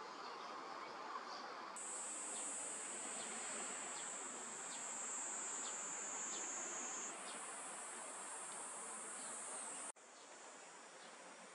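A steady high-pitched insect drone sets in about two seconds in. It shifts slightly in pitch about seven seconds in and cuts off suddenly near ten seconds.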